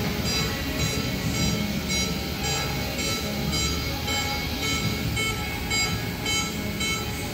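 Cart washer's door warning beeping steadily about twice a second while its load door closes, over a steady low mechanical rumble.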